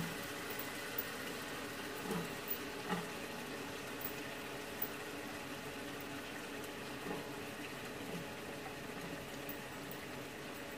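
Mutton cooking in its masala gravy in an aluminium pot, bubbling steadily, with a few light knocks of the wooden stirring spoon against the pot.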